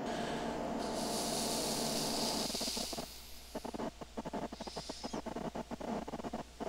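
Steady hiss over a low electrical hum. About two and a half seconds in it drops away into a run of quick, irregular clicks.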